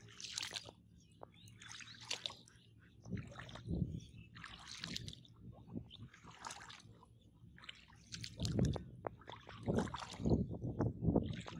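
Wading steps through shallow floodwater: a splashing slosh with each stride, about one a second, the steps growing heavier near the end.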